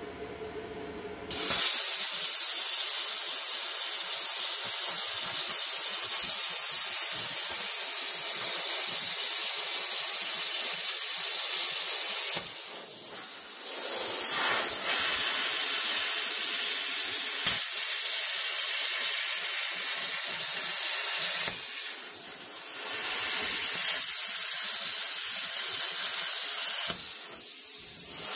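Plasma cutter cutting through the sheet-steel hood: a loud steady hiss that starts about a second and a half in and drops to a softer hiss three times, for about a second each.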